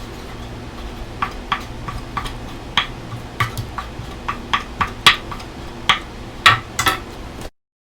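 Irregular sharp clicks and clinks of kitchen utensils and dishes being handled, over a low steady hum. The sound cuts off abruptly near the end.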